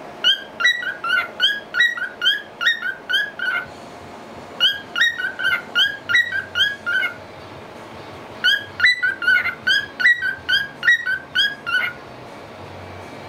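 A lutino cockatiel whistling a song of quick, short, rising notes, delivered in three phrases with brief pauses between them.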